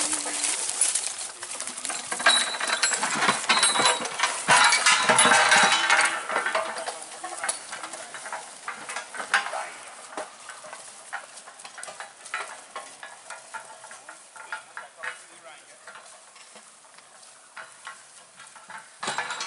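Bullock team's hooves crunching and crackling through dry leaf litter and sticks, with many small snaps. It is loudest in the first few seconds, then fades away as the team moves off.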